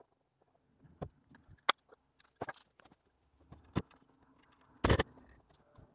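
Scattered clicks and knocks of hands handling and fitting parts of a metal microscope stand, with a louder knock about five seconds in.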